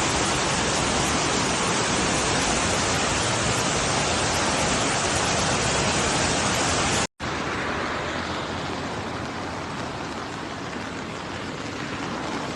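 Steady rushing of water in a flood: an even roar of noise. About seven seconds in it cuts off for an instant and returns somewhat quieter and duller.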